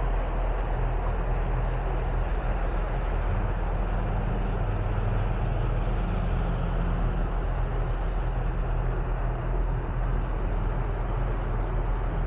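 Outboard boat engines running steadily at cruising speed, with water rushing along the hull and a low, even engine hum throughout.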